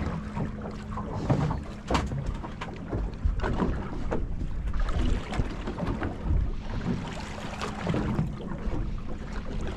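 Choppy water slapping and lapping against the hull of a small anchored boat in irregular knocks, with wind rumbling on the microphone and a faint steady hum underneath.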